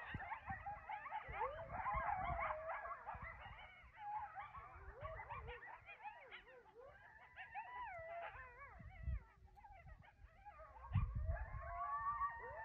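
A pack of coyotes howling and yipping together: many overlapping, wavering high calls that rise and fall in pitch, with low knocks and rumble underneath.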